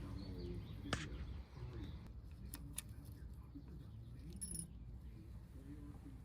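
Light, sharp metallic clicks and clinks of hand tools against engine valvetrain parts: one about a second in, two close together in the middle, then a brief rattle, over faint background voices.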